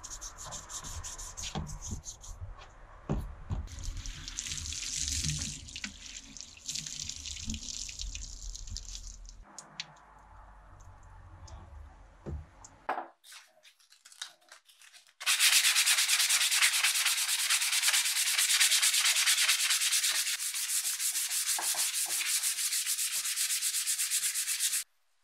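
Hand sanding of a rusty steel rod with abrasive paper, about six seconds of fast, even back-and-forth strokes that stop abruptly near the end, stripping the rust. In the first half there is softer, irregular scrubbing and scraping of parts.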